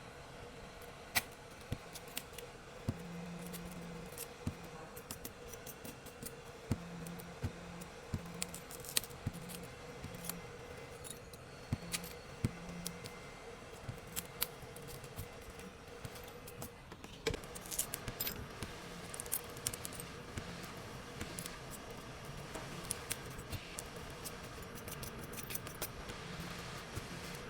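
Small metal hand tools clicking and scraping against a phone's glass and frame during a repair: many sharp, irregular ticks over a faint steady hum, getting busier about two-thirds of the way through.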